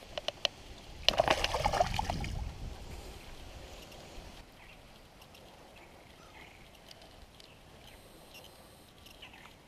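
Water splashing for about a second and a half as a largemouth bass is let go by hand and swims off, then faint outdoor quiet with a few light ticks.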